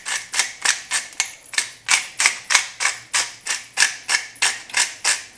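Hand-held pepper grinder being twisted over a pot, a steady run of short crunching grinds, about three a second, as peppercorns are cracked.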